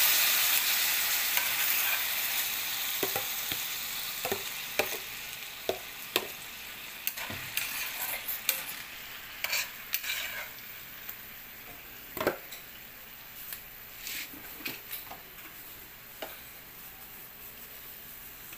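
Marinated beef frying in oil and garlic in a cast-iron skillet, the sizzle loud at first and dying down steadily once the meat is in the pan. A metal spoon scrapes and clinks against the pan every second or so as the beef is stirred.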